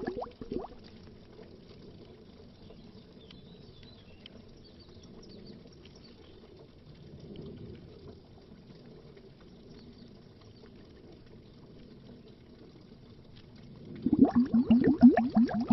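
Bubbles rising through water, heard underwater: a rapid burbling that stops about half a second in, leaving a long stretch of faint low murmur. The burbling starts up again, loud, about fourteen seconds in.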